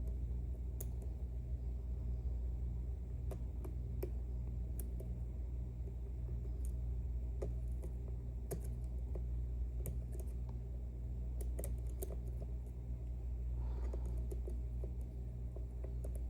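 Faint, irregular clicks of a lock pick and tension tool working the sliders of an Ezcurra C23 slider lock, over a steady low hum.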